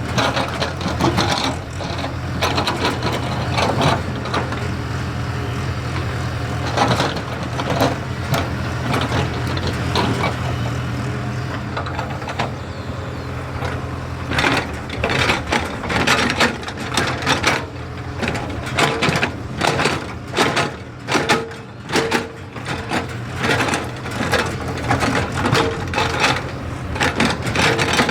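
JCB excavator's diesel engine running steadily under a low drone, with frequent clanks and knocks that come thickest in the second half.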